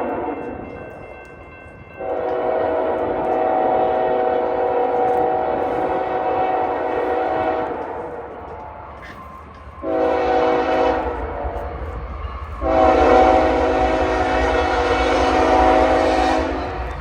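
Diesel locomotive's multi-chime air horn sounding a grade-crossing signal: the tail of one blast, then a long blast, a short one and a final long one, with the locomotive's low rumble growing as it approaches near the end.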